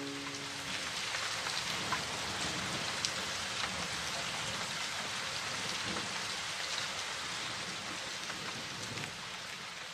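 Steady rain falling, an even hiss with scattered drop ticks, slowly fading toward the end.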